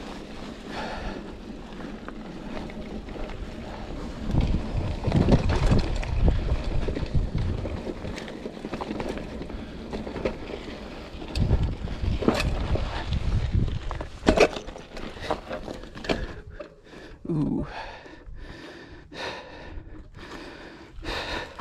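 2019 Specialized Pitch mountain bike ridden over a rocky dirt trail: wind buffeting the microphone with a steady rumble and gusts, and in the second half many sharp knocks and clatters as the bike hits rocks and lands small drops.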